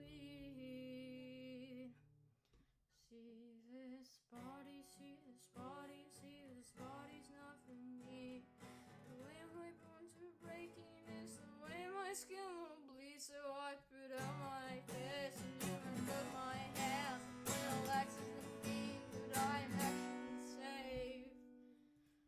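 A song: acoustic guitar chords with a singing voice that wavers in vibrato. It drops away briefly about two seconds in, grows louder from about halfway, and fades out near the end.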